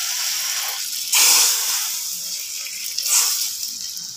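Hot oil tadka with whole red chillies sizzling as it hits the kadhi: a steady hiss that surges loudly about a second in and again near three seconds.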